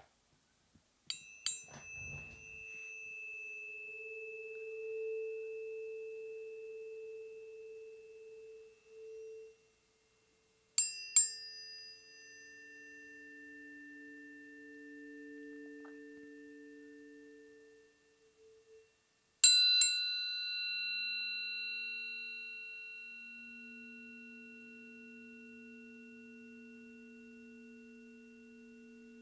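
Planetary tuning forks struck three times, about nine seconds apart. Each strike gives a bright metallic clink that dies away quickly, then pure tones ring on and slowly fade, each strike bringing in a different low pitch along with a thin high tone.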